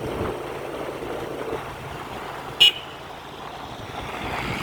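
Steady running and wind noise of a motorcycle ride, with one short, sharp horn toot a little over halfway through.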